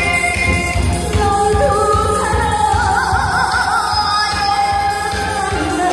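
A woman singing into a microphone over amplified backing music with a steady beat. Her voice comes in about a second in and holds wavering notes.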